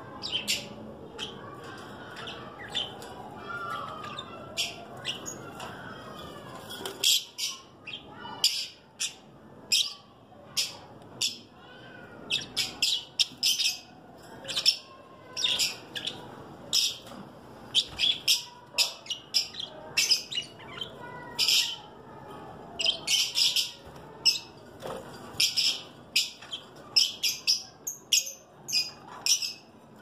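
Caged blue masked lovebirds (blue Personata) giving short, sharp, high chirps over and over in quick runs, which grow more frequent and louder after the first dozen seconds.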